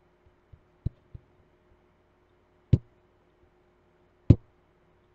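Computer mouse clicks: two small clicks about a second in, then two louder, sharper clicks about a second and a half apart, over a faint steady hum.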